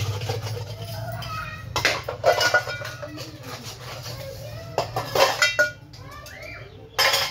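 Steel utensils clinking and clattering as they are scrubbed and washed by hand, with several sharp clanks and the loudest clatter near the end.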